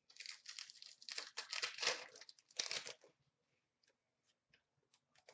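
Stiff trading cards from a 15-16 Upper Deck SP Authentic hockey pack slid and flipped against each other by hand: a run of dry, papery rustles and scrapes for about three seconds, then a few faint ticks.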